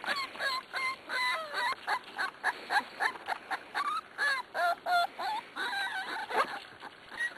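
Corgi puppies crying: a rapid run of short, high whines and yips, several a second and overlapping from more than one puppy, thinning out near the end.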